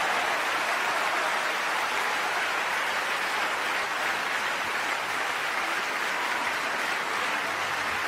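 Theatre audience applauding: dense, even clapping with no music or voices, easing off slightly.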